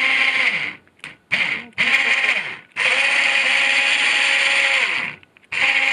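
A 2500 lb electric ATV winch test-run from its handheld remote after reassembly: a loud motor-and-gear whine that stops and starts several times, sliding down in pitch as it winds down at each stop. The longest run is about two seconds, in the middle.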